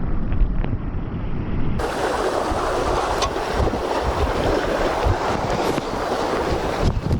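Wind buffeting the microphone over the wash of sea surf. About two seconds in, a louder, denser rush of waves comes in.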